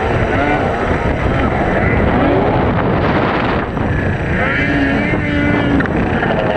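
Racing snowmobile engines revving up and down as the sleds take the jumps, more than one at a time, with a held steady note for about a second past the middle, over wind on the microphone.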